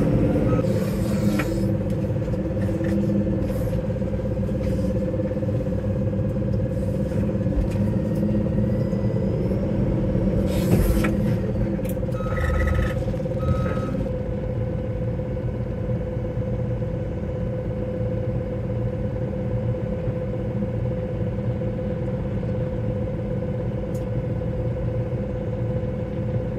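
A JCB's diesel engine running steadily, heard from inside its cab, with an even hum over the drone. A reversing alarm beeps a few times about twelve to fourteen seconds in, and there are a couple of knocks shortly before.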